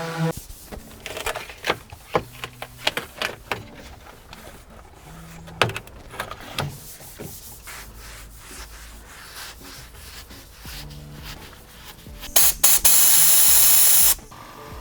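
Hand sanding and scraping on car body panels during bodywork prep: irregular rubbing strokes and knocks. Near the end comes a loud hiss, like an air or spray burst, lasting about two seconds and cutting off suddenly.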